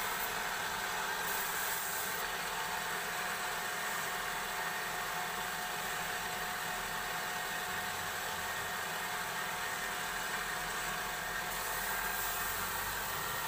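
Wood lathe running steadily with a constant motor hum, spinning a wooden cylinder. Near the end a brighter hiss comes in as sandpaper is held against the turning wood.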